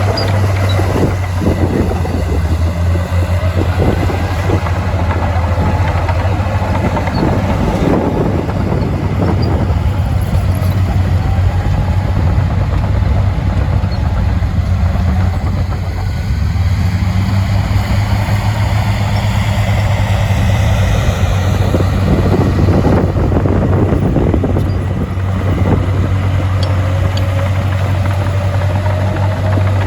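Heavy diesel earthmoving machinery running steadily under load, with a strong low engine hum and a higher note that rises and falls several times as the machine works.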